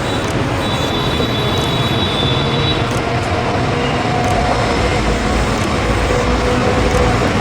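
Steady, loud road traffic noise from a busy highway: a continuous rumble of passing vehicles.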